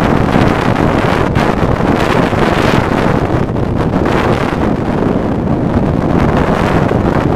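Radio-controlled Jet Provost T5 scale model jet flying overhead, its engine a steady broad roar, mixed with wind buffeting the microphone.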